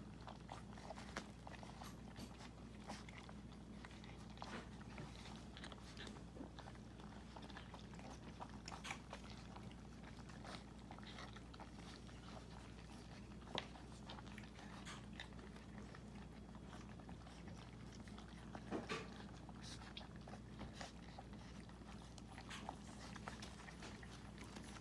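Miniature pinscher puppies eating dry kibble from a plastic bowl: faint, scattered crunching and clicks of teeth and food against the bowl, over a low steady hum, with a few sharper clicks about halfway through and again a little later.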